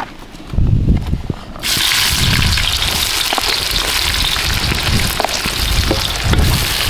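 Food sizzling in hot fat, starting abruptly about one and a half seconds in, with a low rumble underneath.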